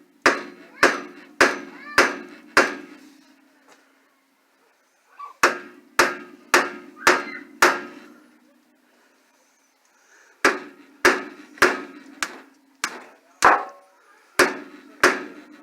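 Hammer blows on a car's rusted-on front wheel, struck to break it free of the hub. The blows come in three runs of five or six, a little under two a second, and each leaves a brief metallic ring.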